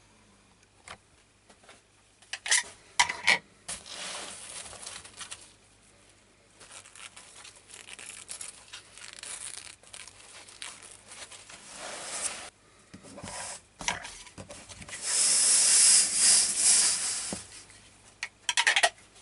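Layers of a stab-vest armour panel being pulled apart by hand: fabric rustling and tearing as the fine chainmail layer is peeled back off the quilted layer beneath, with scattered clicks. The loudest stretch of tearing noise lasts about two seconds, starting about three-quarters of the way through.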